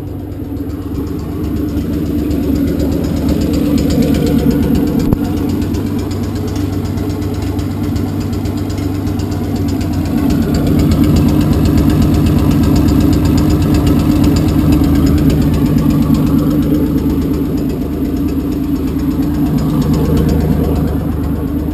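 2003 Sandcars Unlimited sandrail's rear-mounted engine running steadily at idle, loud, with gentle swells in level.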